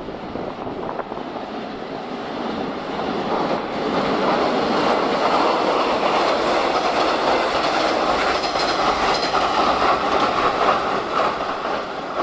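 KiHa 110 series four-car diesel railcar train running across a steel girder bridge, growing louder from about two seconds in, loudest through the middle and easing off slightly near the end.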